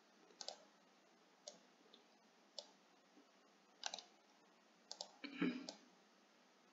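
Faint computer mouse clicks, single and in quick pairs, coming every second or so as integral regions are selected and dragged. A brief soft noise comes about five and a half seconds in.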